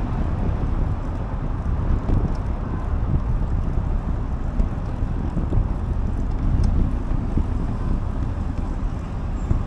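Wind buffeting the microphone of a camera riding on a moving bicycle: a steady low rumble.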